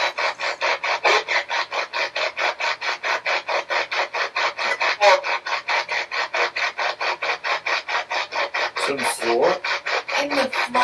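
SB-11 spirit box sweeping rapidly through radio stations: evenly chopped bursts of static and broadcast snippets at about seven a second. Short voice-like fragments break through, one of which the investigators take for the words 'in the floor'.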